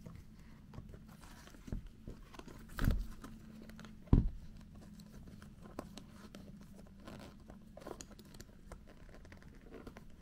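Handling of a Dr Martens Eviee leather Mary Jane shoe: rustling and small clicks as its metal buckles and straps are worked, with two louder knocks about a second apart a few seconds in.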